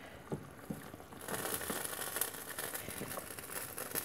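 Wooden spoon scooping in a pot of simmering bean and potato curry: a few light knocks, then a steady crackling hiss from about a second in.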